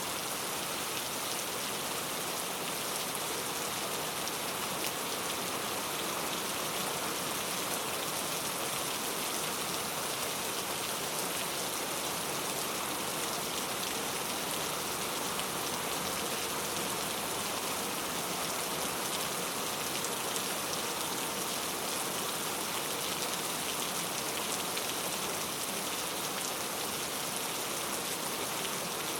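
Heavy rain falling, a steady, even hiss of dense drops.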